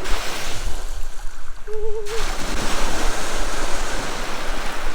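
Steady rushing noise with a heavy low rumble; a short wavering tone sounds briefly about two seconds in.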